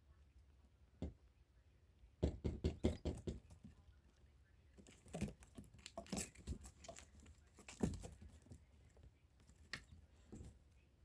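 Irregular light taps and knocks, with a quick run of taps about two seconds in and scattered single knocks after it.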